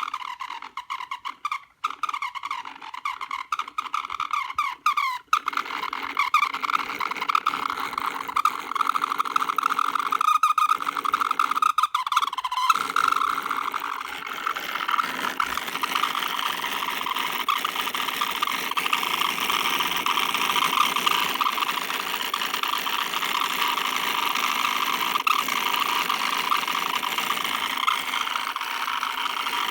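Broken laptop cooling fan running with a high-pitched, distorted whine and a vibrating noise under it. It stutters and cuts in and out during the first few seconds and twice more a little later, then runs steadily.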